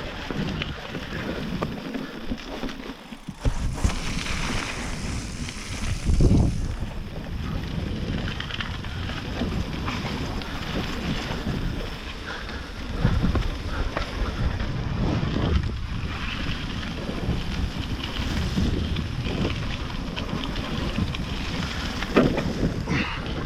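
Wind buffeting the camera microphone while a mountain bike rolls down a wet trail, with tyre noise and a few heavier thumps as it hits roots and rocks.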